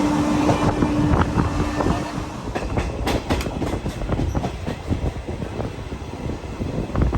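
Passenger train running along the track, its wheels clattering over rail joints in an uneven series of sharp clicks from about two and a half seconds in, over a steady rumble. A steady low tone sounds during the first two seconds.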